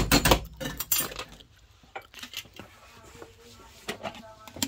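Plastic instant-noodle cup and its snap-on lid clattering and clicking as it is handled over the sink to drain off the hot water. The clatter is loudest in the first second, then gives way to a few lighter clicks.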